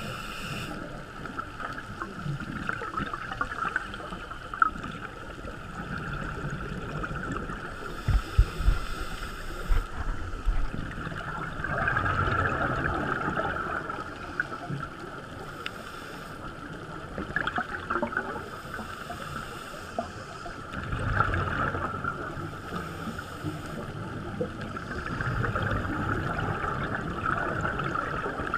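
Underwater sound picked up through a GoPro camera housing: a steady muffled hiss with recurring swells of bubbling from scuba divers exhaling, coming every four to five seconds. A few sharp knocks sound around eight to nine seconds in.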